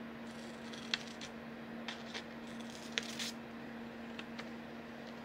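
Scissors snipping folded paper: a few faint snips and paper rustles, the loudest about three seconds in, over a steady low hum.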